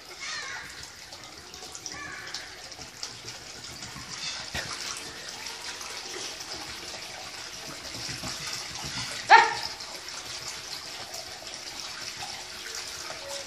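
Submersible 12 V DC water pump running in a tub of water, its jet bubbling and splashing steadily at the surface. About nine seconds in, a single short, loud pitched cry cuts across it.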